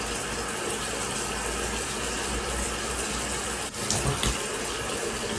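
Bathroom sink tap running steadily while water is splashed onto a face, with a few louder splashes about four seconds in.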